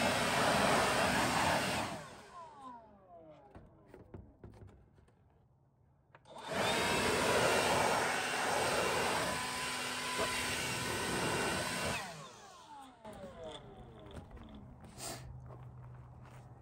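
An air blower blowing cutting particles out of the grooves of a freshly cut panel, in two blasts: a short one at the start and a longer one of about five seconds from a third of the way in, each dying away gradually.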